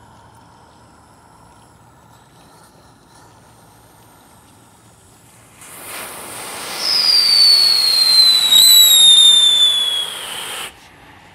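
Novelty train firework: after some quiet seconds of smoking, it bursts into a loud hiss of sparks about five and a half seconds in. About a second later a shrill whistle joins and slides slowly down in pitch, until the whole thing cuts off suddenly near the end.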